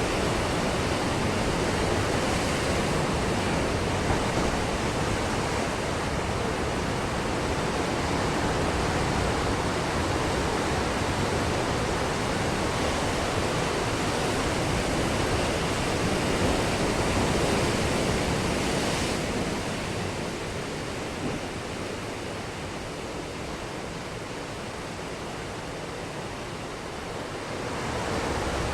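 Ocean surf washing onto a beach: a continuous rush of breaking waves that eases off about two-thirds of the way through, then swells again near the end.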